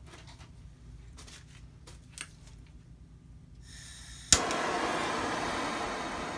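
Handheld gas torch lighting: the gas starts to hiss, a sharp click as it lights a little after four seconds in, then the flame burns with a steady loud rushing hiss that slowly eases. A few faint clicks of handling come before it.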